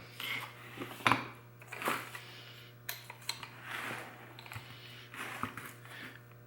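Scattered metallic clinks and handling clicks as angle-grinder parts and hand tools are picked up and worked at, the sharpest about a second in, over a steady low mains hum.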